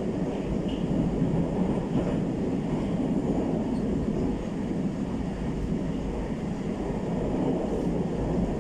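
Inside a moving 81-765/766/767 metro car: the steady rumble of the train running between stations, wheels and running gear on the rails.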